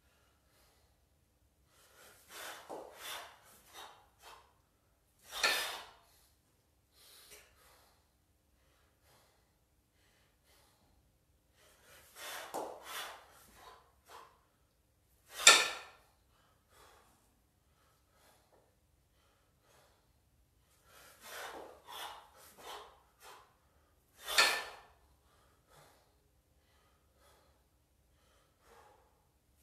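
A kettlebell lifter's hard breathing during double half-snatches. It comes in three bursts about nine seconds apart, each a run of short breaths ending in one loud, sharp exhale.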